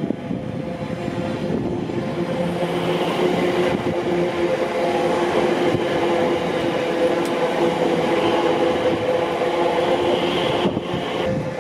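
Class 345 electric multiple unit pulling away from the platform: a steady whine from its traction equipment over the rumble of wheels on rail, growing louder over the first few seconds as it gathers speed.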